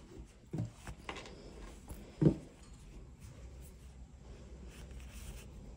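Soft rustling and rubbing of yarn and stuffed crocheted pieces being handled while sewing, with a few brief low bumps in the first couple of seconds, the loudest about two seconds in.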